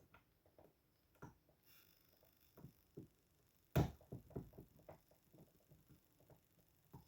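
Faint clicks and ticks of a lock pick and tension tool working the pins of an 18-pin AEGIS high-pin-count lock, with one sharper click a little past halfway followed by a quick run of small clicks.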